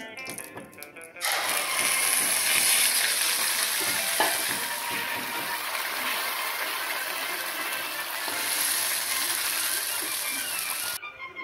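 Hot oil tempered with mustard seeds, split black gram and curry leaves sizzling loudly as the wet peanut chutney mixture hits the pan and is stirred with a wooden spatula. The sizzle starts abruptly about a second in and stops sharply near the end.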